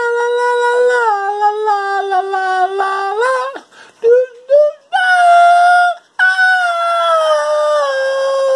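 A man singing without words or accompaniment in a high falsetto. He holds long notes that sag and rise in pitch, breaks off briefly about three and a half seconds in, then gives two more long notes pitched higher.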